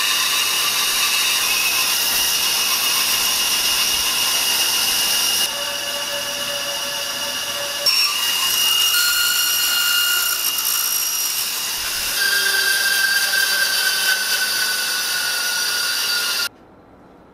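Band saw running and cutting into a walnut block, a steady high whine over a hiss. Its level shifts a few times and it cuts off suddenly near the end.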